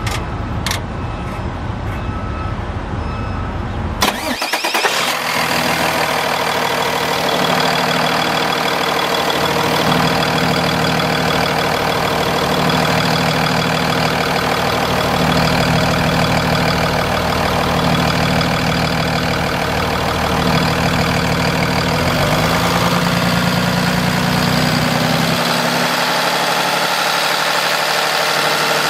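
Paccar PX7 six-cylinder diesel engine of a Kenworth T270 truck starting: after a low rumble, it catches suddenly about four seconds in and then idles steadily.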